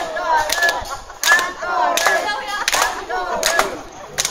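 Concert audience chanting "encore" in unison over rhythmic clapping, about one clap every 0.7 seconds, calling the singer back to the stage for an encore.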